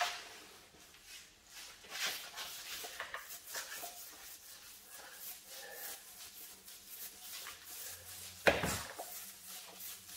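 Small paint roller rolled in short strokes over a primed plaster door reveal, spreading latex paint: a soft, repeated rubbing with each stroke. One sharp knock near the end.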